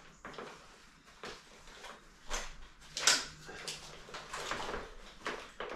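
ToughBuilt tool belt being handled as a small dual holster is clipped onto it: scattered clicks and rustling, the sharpest clicks about two and a half and three seconds in.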